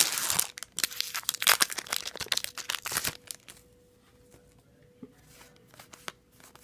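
A Yu-Gi-Oh booster pack's foil wrapper being torn open and crinkled, a dense crackling rustle for about three seconds, then only a few faint ticks.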